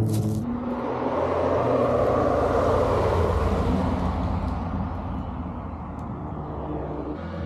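Historic rally car passing at speed, its engine and tyre noise swelling to a peak about two to three seconds in, then fading away.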